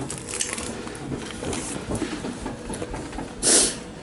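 Small clicks and low clatter from a person eating spicy noodles close to the microphone, with one short loud rushing noise about three and a half seconds in.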